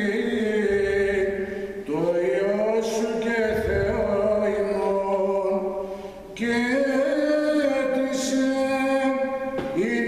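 A male cantor singing Greek Orthodox Byzantine chant, drawing out long held notes that slide gently in pitch, with short pauses for breath about two seconds in and again about six seconds in.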